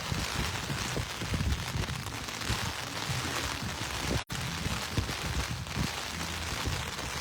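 Steady rain falling, with irregular low thumps and rumbles, and the sound cuts out briefly about four seconds in.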